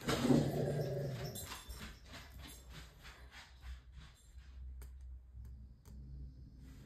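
A dog's brief low vocalisation at the start, fading over about a second and a half, then a run of light clicks as a diamond-painting drill pen taps resin drills onto the canvas.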